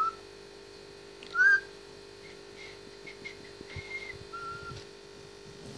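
Indian ringneck parakeet whistling: a short chirp at the start, a louder whistle that rises and falls about a second and a half in, then several soft short notes and one held note.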